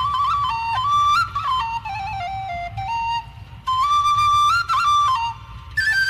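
Background music: a flute playing a melody that moves in small steps, in phrases with short breaks between them, over a low steady rumble.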